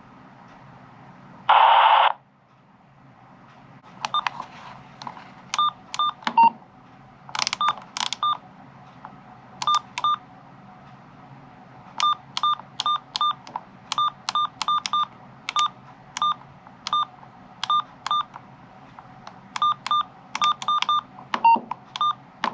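A Uniden BCD436HP scanner gives a brief burst of radio static, then a long run of short electronic beeps at uneven intervals, like key tones as buttons are pressed.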